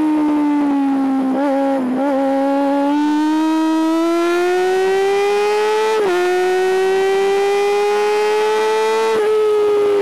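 Honda CBR400RR NC29's high-revving 400 cc inline-four under riding load. The pitch falls through the first two seconds, with two brief wobbles, then climbs steadily as it accelerates, dropping sharply about six seconds in and a little again just after nine seconds, the sound of upshifts.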